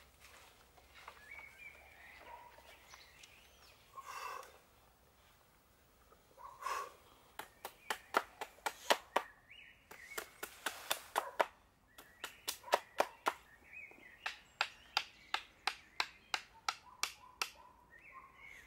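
Runs of quick, sharp hammer blows, about three a second with short pauses between runs, driving a stake into the ground; they begin about seven seconds in. Faint bird chirps can be heard before and between them.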